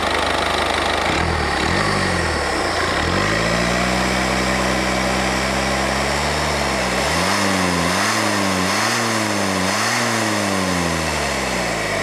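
Citroën DS3's 1.6 e-HDi four-cylinder turbo-diesel revved with a turbo pipe open: the revs climb and hold, then rise and fall several times before dropping back near the end, over a steady rush of air from the open pipe. The failed turbo is blowing oil out with the air.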